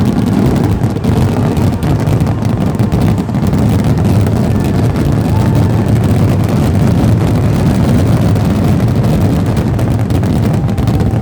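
Fireworks finale barrage: many shells bursting in rapid, overlapping succession, merging into a continuous loud, low rumble.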